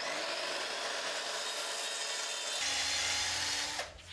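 A saw cutting through timber, a steady continuous cutting noise that stops near the end.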